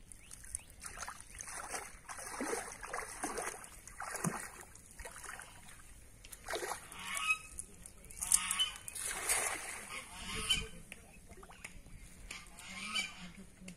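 Water swishing and splashing around a person's legs as she wades slowly into a shallow pond. Several honking bird calls, typical of domestic waterfowl, come over it from the middle of the stretch onward.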